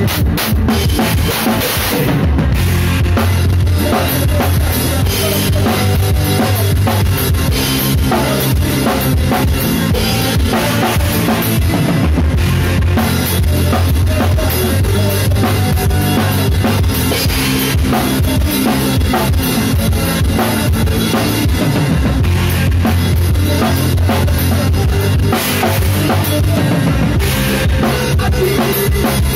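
Drum kit played close up during a live rock band performance: fast snare, bass drum and cymbal hits. The band's held low bass notes run underneath.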